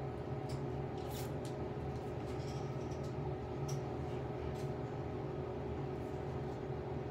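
Steady low electrical or mechanical hum of room tone. Faint small clicks and taps come in the first few seconds as makeup and a brush are handled.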